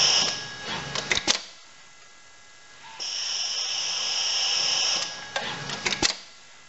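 ABB YuMi dual-arm robot work cell running: a steady hiss of compressed air at the start and again for about two seconds in the middle, each followed by a quick burst of sharp mechanical clicks and clacks from the grippers and pneumatic fixture clamps.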